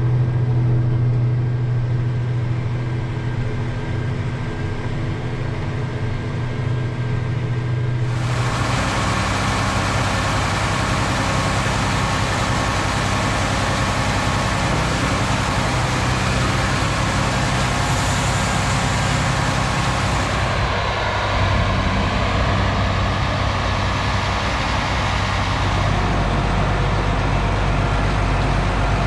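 Heavy harvest machinery engines running steadily. The sound changes abruptly about eight seconds in, turning fuller and hissier, and shifts again around 20 and 26 seconds in.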